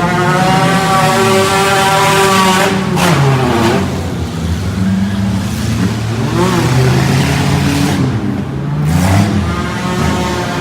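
Off-road derby car engines revving hard and accelerating. One engine is held high for the first few seconds, then the pitch keeps rising and falling as the cars speed up and slow.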